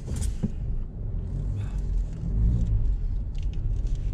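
Low rumble of a car's engine and road noise heard inside the cabin while driving slowly, with a few faint clicks.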